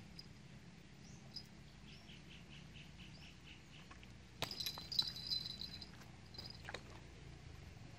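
Small birds chirping at the waterside: a quick run of short, evenly spaced high notes about two seconds in, then a louder burst of sharp high chirps about halfway through.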